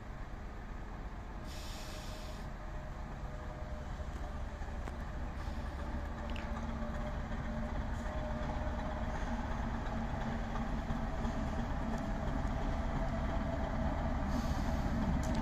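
V65 diesel locomotive's engine running as the locomotive moves slowly toward the listener, growing steadily louder. A short hiss comes about one and a half seconds in and another near the end.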